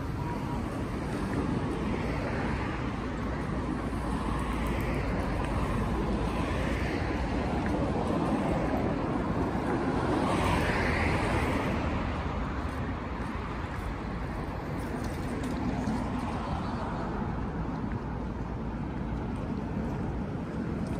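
Road traffic on a multi-lane city street: a steady wash of car and tyre noise, swelling as a car passes about ten seconds in.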